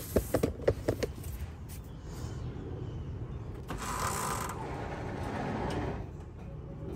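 Floor jack being let down under a pickup: a quick run of sharp clicks and clunks in the first second, then a hissing rush from about four seconds in until about six seconds.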